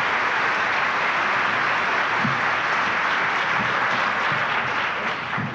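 Audience applauding steadily after a song, the applause dying away near the end.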